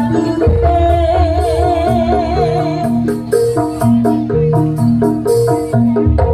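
Javanese jaranan gamelan music: mallet percussion plays a fast repeating interlocking melody over deep drum and gong strokes. About a second in, a long wavering held melody note sounds above it.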